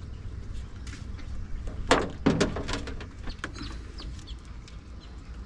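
Several short, sharp sounds clustered about two seconds in, over a low, steady rumble.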